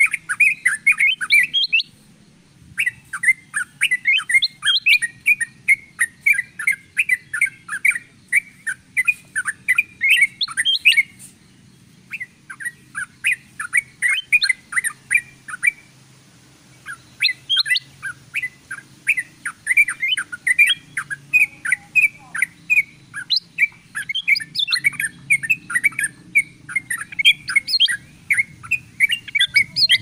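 Rapid, busy chirping and twittering of bulbuls on a bird-lure track that mixes yellow-vented bulbul (trucukan) and ruby-throated bulbul (kutilang emas) calls, with sharp high ticks over the top. The calling breaks off briefly a few times and then starts again.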